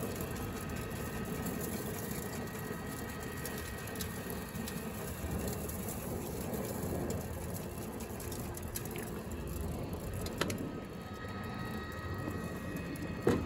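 Weber grill rotisserie running: the electric spit motor turns the pork shoulder with a steady running noise and a faint whine, over the steady hiss of the lit gas grill. A few light clicks, a sharper click about ten seconds in and a short knock near the end.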